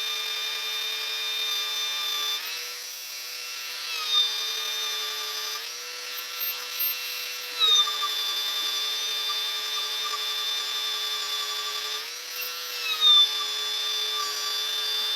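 Belt sander running against the edge of a pine board. Three times the motor's pitch rises slightly as the pressure eases, then drops again with a brief louder scrape as it bites back into the wood.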